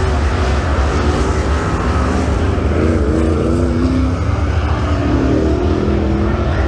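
Open-wheel dirt modified's V8 engine idling with a steady, deep rumble, with indistinct voices faintly over it about halfway through and near the end.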